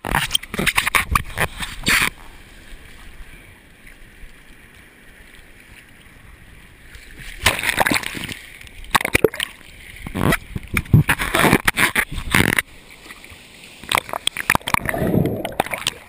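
Water splashing and sloshing against a GoPro camera at the beach, in irregular loud bursts with quieter spells between.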